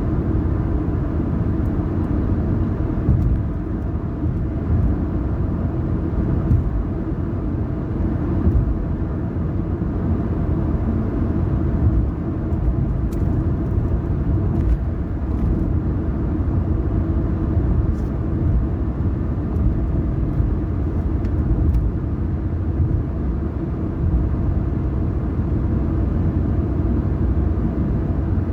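Car driving at a steady pace: even road and engine rumble, with a few faint ticks.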